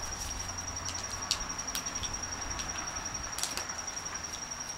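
Scattered light metallic clicks and taps of a hand tool and small hardware on a Denso starter's solenoid terminals as its copper bus bars are unbolted, over a steady high-pitched chirping of crickets.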